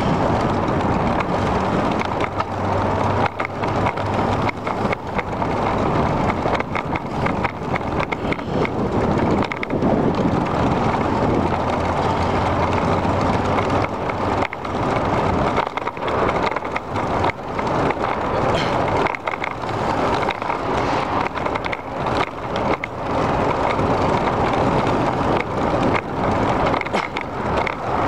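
Bicycle rolling along a paved bike path: steady tyre and wind rumble with frequent small rattling knocks from bumps in the path.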